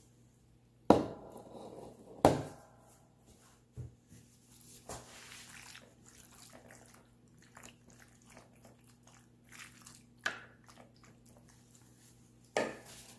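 Wooden spoon stirring pasta with sauce and cheese in a glass baking dish: two sharp knocks of the spoon against the glass in the first few seconds, then softer scraping and wet squishing with a few lighter taps.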